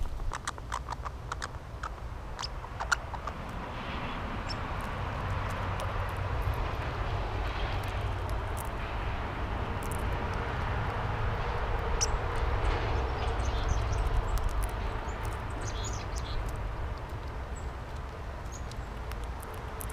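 Distant engine noise that swells over several seconds, peaks past the middle and slowly fades, over a steady low rumble. A run of sharp clicks comes in the first few seconds, and a few faint high chirps come later.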